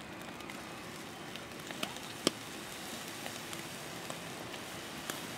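Fish sizzling over a charcoal fire in a wire grill basket as liquid is poured onto it from a jug, a steady hiss with scattered small crackles. One sharp pop about two seconds in.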